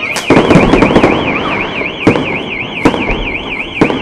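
Fireworks exploding: sharp bangs near the start, about two seconds in, and near the end, with a burst of crackling after the first. Under them a car alarm warbles rapidly and continuously up and down.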